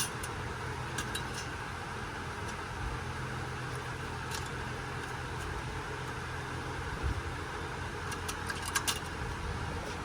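Scattered light metallic clicks and clinks of parts and tools being handled on an engine's intake, with a small cluster near the end, over a steady mechanical hum.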